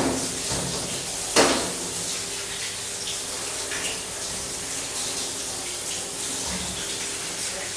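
Kitchen tap running water over broccoli and cauliflower florets being washed in the sink, a steady splashing, with two sharp knocks, at the very start and about a second and a half in.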